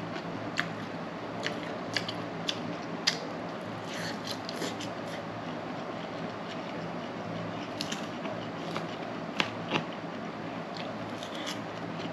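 A person eating from a ramen platter: irregular sharp clicks of utensils against the dish, with chewing, over a steady low hum.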